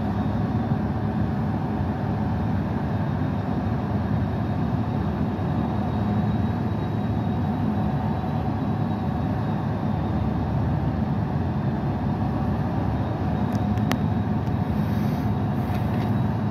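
Siemens Charger diesel-electric passenger locomotive's engine running at a steady low rumble while the train stands at the platform, with a couple of sharp clicks near the end.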